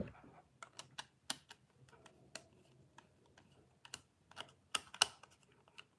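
Screwdriver tightening a terminal screw on a plastic two-way light switch: light, irregular clicks and taps, the loudest about five seconds in.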